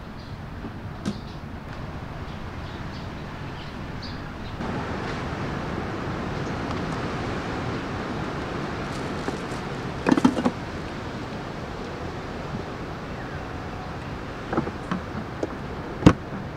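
Hard plastic cooler being handled: a quick cluster of knocks about ten seconds in, a few light clicks, then a sharp snap near the end as a rubber T-latch is pulled shut. A steady outdoor background hum runs underneath and grows louder a few seconds in.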